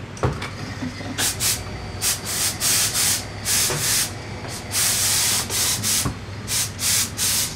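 Hose-fed air nozzle blasting into a mink fur vest in a dozen or so short hissing bursts, with one longer blast about five seconds in. The blasts lift and set the fur so loose hairs won't shed later.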